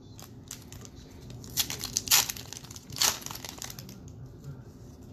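Silver foil wrapper of a Topps baseball card pack crinkling and tearing as it is opened by hand, in a few sharp bursts of crackle between about one and a half and three seconds in.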